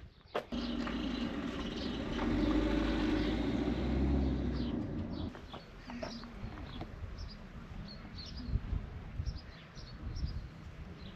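Small birds chirping with short, repeated high calls. For the first five seconds a steady low rumble runs under them, then stops abruptly.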